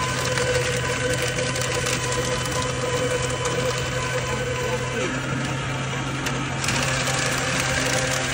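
Staples office paper shredder running, its motor humming steadily while sheets of paper are pulled in and cut. The shredding gets a little louder and harsher near the end as another sheet goes in.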